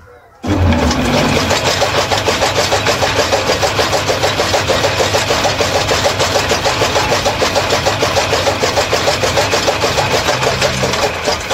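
Electric fodder chaff cutter (toka), its motor belted to a bladed flywheel, switched on about half a second in and running at high speed with a fast, even clatter. It is switched off near the end and begins to run down.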